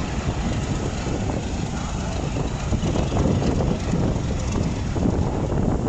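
Diesel-electric locomotive running as it moves along the tracks, a steady low engine noise.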